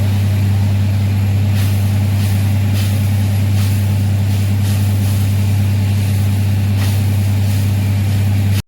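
Tractor-mounted borewell drilling rig running steadily with a loud, even, deep engine drone and a few faint hissing spurts; the sound cuts off abruptly just before the end.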